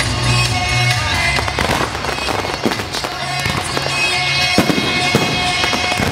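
Firecrackers of an electronic fireworks display popping and banging in quick, irregular bursts over loud music with a pulsing bass.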